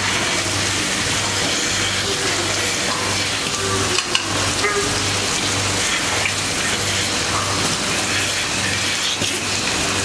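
Milking machines running in a dairy shed: a steady hiss of vacuum and water, with a low hum that throbs on and off in a regular rhythm, typical of milking-machine pulsators. A couple of light knocks about four seconds in.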